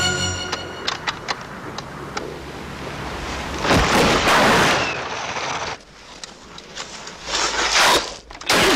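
Action-film sound effects of a snow chase: loud rushing whooshes of skis and spraying snow, the loudest about four seconds in and again near the end, over the engine of the pursuing motorbike and a few sharp cracks early on.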